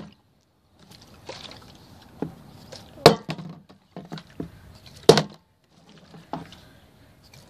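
Partly filled plastic water bottle being flipped and landing on a wooden deck, with water sloshing inside between throws. Two loud knocks come about 3 and 5 seconds in, with smaller taps around them.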